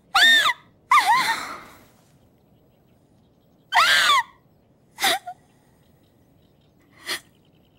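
Crows cawing: five separate harsh calls spread across the pauses, the last two shorter and fainter.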